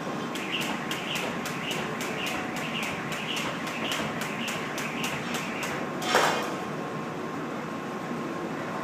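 Jump rope turning fast for double-unders: even ticks at about three and a half a second, with a whir on about every second tick. The rope stops about six seconds in with a brief, loud falling swish, over a steady background hum.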